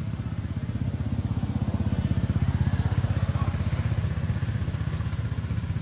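A motorcycle engine passing by, its fast low putter getting louder toward the middle and then fading away.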